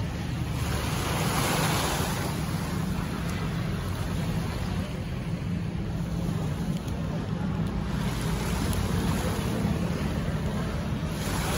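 Sea waves washing against the shore, swelling about a second in and again near the end, over a steady low rumble.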